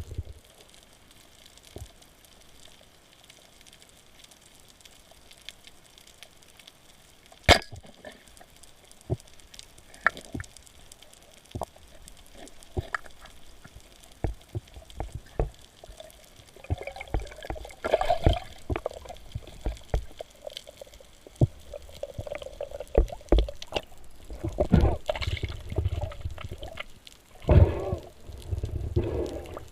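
Water sloshing and bubbling, with scattered sharp clicks and knocks, growing louder and rougher with low rumbles in the second half.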